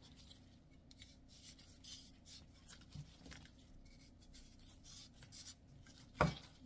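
Knife scraping through green garlic stalks as they are split lengthwise at the stem ends on a plastic cutting board, in faint irregular strokes with rustling of the stalks being handled. One sharper knock comes just after six seconds in.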